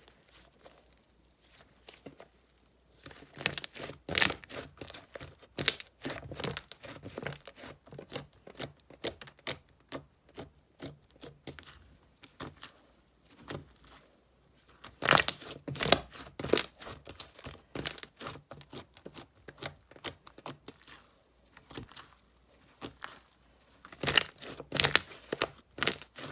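Hands squishing, pressing and stretching slime: dense runs of sticky crackles and small pops, coming in bursts with quieter pauses between them.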